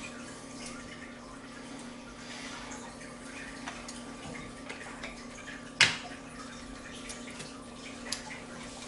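Milk being poured from a plastic gallon jug into a pot: a faint trickling pour over a steady low hum, with one sharp click about six seconds in.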